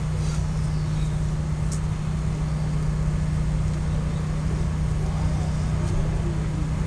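A steady low hum runs without change under the scene, with a faint high click about two seconds in.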